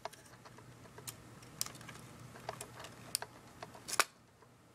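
Scattered small plastic and metal clicks and taps as a screwdriver and fingers work the flash board loose from the plastic body of a Sony Mavica MVC-FD83 digital camera. The loudest click comes about four seconds in.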